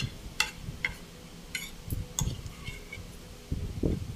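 Metal spoon and fork clinking and scraping against a ceramic plate while eating, a few light separate clicks spread through the few seconds.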